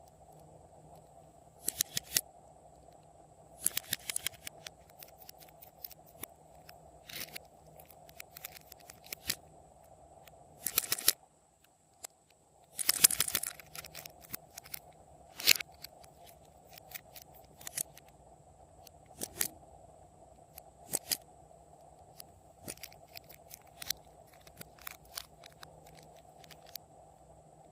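Glossy slime being worked by hand: irregular clusters of sticky crackling pops and clicks, with the busiest bursts about 4, 11 and 13 seconds in.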